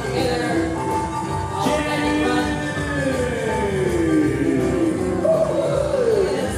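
Music with singing, with a long falling slide about three seconds in and a shorter one near the end.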